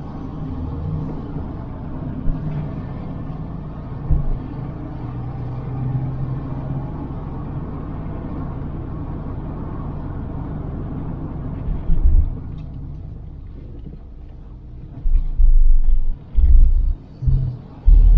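A moving car's steady low engine and road rumble. In the last few seconds, several loud, low thumping surges cover it, each about half a second to a second long.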